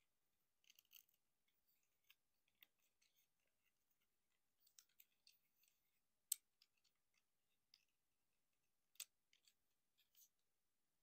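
Scattered small plastic clicks and snaps from a Transformers Optimus Prime figure's joints and panels being moved and clicked into place, with two sharper snaps about six and nine seconds in.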